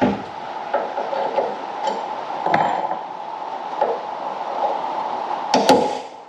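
About six irregular metal knocks, hammer taps driving a worn, kinked door hinge pin out of a Hillman Imp door hinge, over a steady hum. The loudest pair of taps comes near the end.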